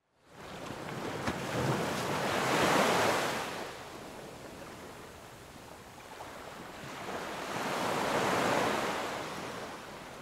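Ocean waves washing in, swelling twice: once around three seconds in and again near eight seconds, fading in at the start.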